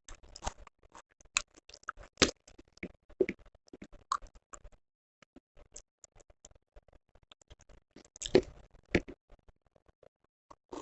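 Close-miked eating: irregular chewing and wet mouth clicks, with a few louder bites about two seconds in and again near the end.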